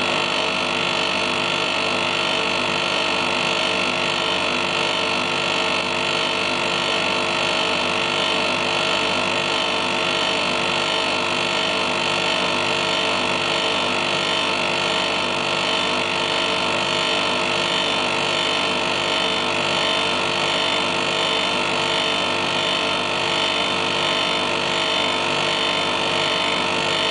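Frozen Armor SS single-stage phase-change cooler running steadily: a continuous mechanical hum and whir of its compressor and fan, with several steady tones over a hiss.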